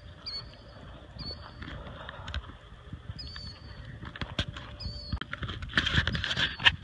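Short high chirping calls, each a quick rising note, repeat every second or so over a background of noisy crackling. A louder rush of noise and crackle swells near the end.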